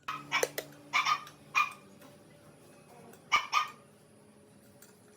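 A dog barking: five short barks, three about half a second apart, then a quick pair a little after three seconds in.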